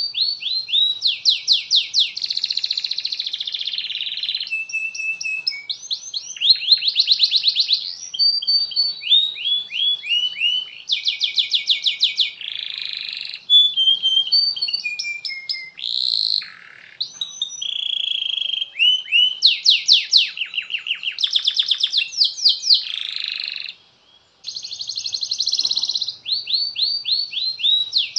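Domestic canary singing a long song of rapid trills and rolls, one phrase running straight into the next, with a short break near the end.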